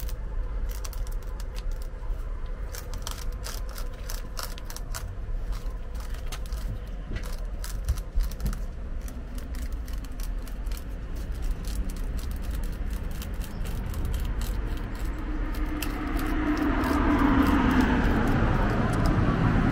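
Spiral rasp tool from a plug-type tyre repair kit being pushed and twisted back and forth in a screw puncture in a camper's tyre tread, widening the hole to take a rubber repair plug: a run of fast, irregular small clicks and scratches. Near the end a steadier noise swells up over it.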